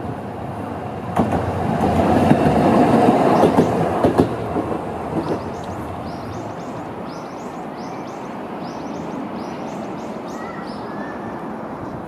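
A Toden Arakawa Line tram running past on the track, its wheels clicking over the rail joints; the sound swells for a few seconds, then fades away.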